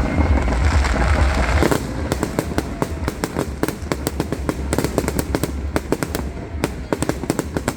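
Fireworks going off: a low rumble, then from about two seconds in a dense run of rapid crackling pops.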